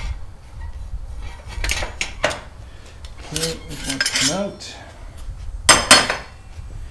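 Steel table-leg tubing and a cast-iron welding vise clinking and knocking together as the clamped parts are handled, several separate metallic knocks with the loudest pair near the end.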